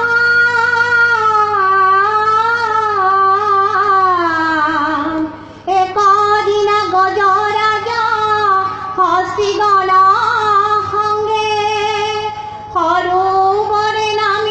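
Dihā nām, an Assamese devotional song, sung by a high solo voice through a microphone in long, gliding melodic phrases, with two short breaks between phrases.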